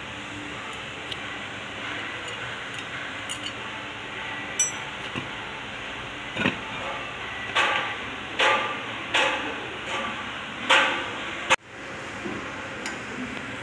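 A series of about five knocks and clunks over some four seconds as a tractor's front wheel, a steel rim carrying a lugged tyre, is worked off the axle hub studs, with a sharp metallic click a little before. Steady workshop background noise underneath, broken by a sudden short cut near the end.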